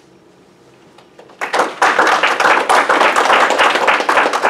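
Audience applauding: dense clapping starts about a second and a half in, after a brief quiet.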